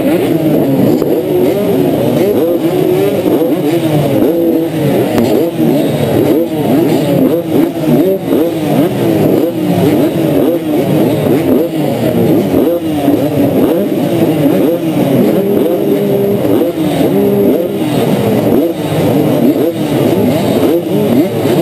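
A line of motocross bikes, the rider's own 1992 Honda CR125 two-stroke among them, revving while held at the start gate. Many engines rise and fall in pitch over one another without a break.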